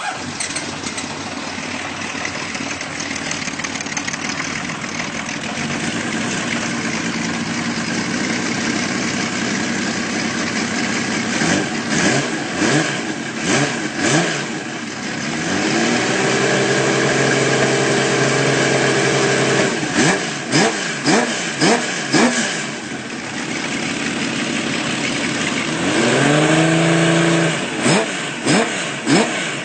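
Honda CBX 1050's air-cooled inline six-cylinder engine running steadily, then revved: quick throttle blips, and twice a rev that climbs and holds high for a few seconds before dropping back.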